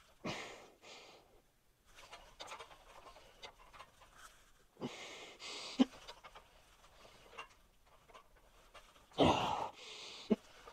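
A man breathing hard under exertion during a lifting set to failure: three forceful exhales, about four to five seconds apart. A short sharp knock comes near the middle.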